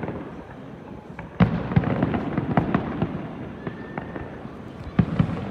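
Fireworks display going off: a rapid string of bangs and crackling pops. It turns much louder and denser about a second and a half in, with another loud bang near the end.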